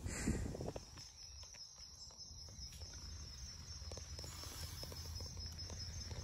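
Insects chirping faintly outdoors: a high, thin, pulsing trill that sets in about a second and a half in and holds steady, over a low rumble of wind. A brief rustle at the start.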